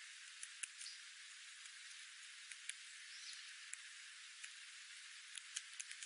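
Light rain: a steady, quiet hiss with scattered sharp ticks of single drops, a few of them bunched close together near the end.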